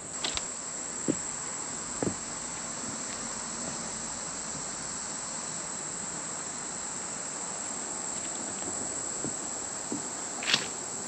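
Steady high-pitched drone of an insect chorus, with a few scattered soft knocks and scuffs, the loudest near the end.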